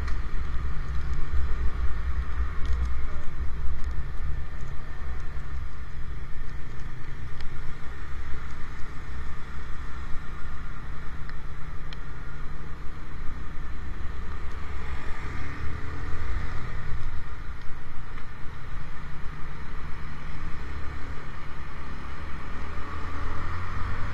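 Riding a motorcycle in town traffic: steady wind buffeting on the microphone over the engine and road noise.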